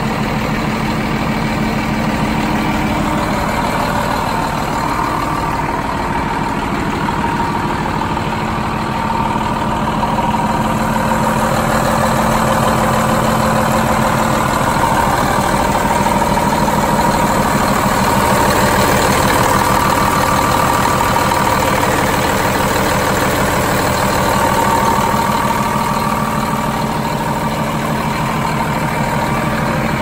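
Diesel engine of a 2004 International 5500i concrete mixer truck idling steadily, a little louder midway.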